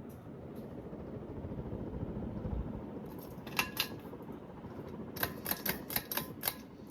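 1988 Hunter Custom Home ceiling fan running with a steady whoosh. Sharp clicks come twice in quick succession about three and a half seconds in, then about six more in a quick run near the end.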